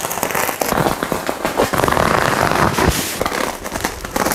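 Black bubble-wrap packaging around a parcel being slit with a box cutter and torn away, giving a dense, continuous crackling and crinkling of plastic.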